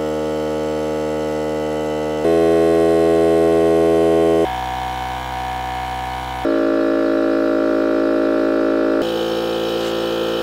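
Cordless air compressors running one after another, each for two to three seconds: Ryobi, then Hart, Bauer, Craftsman and DeWalt. Each gives a steady pitched motor-and-pump hum, and the pitch and loudness jump abruptly at each change of machine. The Hart and Craftsman are the loudest.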